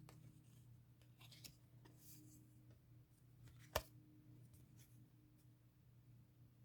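Faint handling noises of unboxing, light rustles and taps, with one sharp click a little over halfway through, over a low steady hum.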